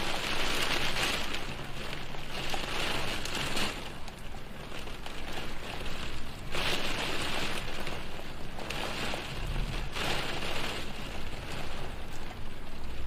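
Rain falling on a window, an even patter that grows louder and fades again every few seconds.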